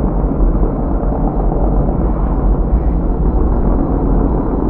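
Loud, steady rumble of a pack of hobby-class pickup trucks' engines racing around a dirt oval.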